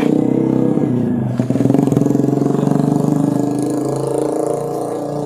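A motor vehicle's engine running close by, steady, with a brief dip about a second and a half in.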